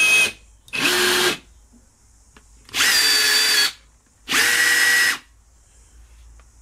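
Cordless 18V rivet guns pulling quarter-inch (6.4 mm) rivets held in free air: four short motor whirs of under a second each, the first two from a Bosch and the next two from a Makita.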